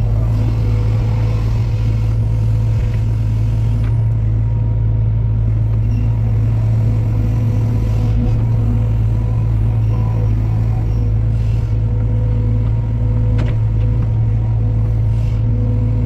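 Diesel engine of a heavy machine running steadily at a constant speed, with a deep even hum and a few faint clicks.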